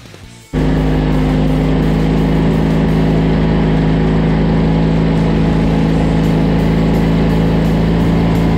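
Kohler KT17 twin-cylinder engine of a Wheel Horse 417-A garden tractor running steadily at an even speed, cutting in abruptly about half a second in.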